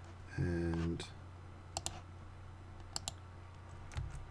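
Computer mouse clicking: two quick pairs of clicks about a second apart, then keyboard keys start tapping near the end.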